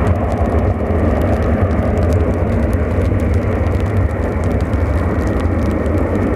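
The four rear-mounted Soloviev D-30KU turbofans of an Ilyushin Il-62M running at takeoff power as the airliner lifts off. The noise is steady and deep, with most of its weight in the low rumble.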